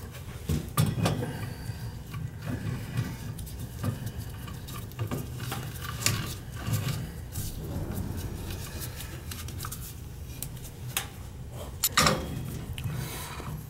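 Metal gas pipe fittings and tools being handled: scattered clinks, knocks and scraping, with a louder cluster of knocks near the end.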